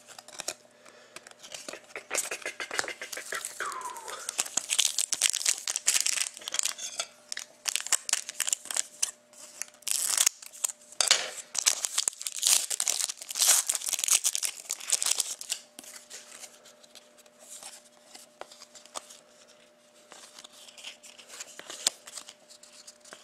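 Foil wrapper of a trading-card pack being torn open and crinkled: a dense run of crackles and rips, busiest in the middle stretch and thinning out near the end.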